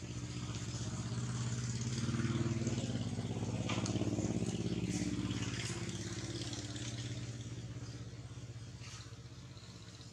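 A motor vehicle's engine passing by: it grows louder over the first few seconds, then fades away toward the end.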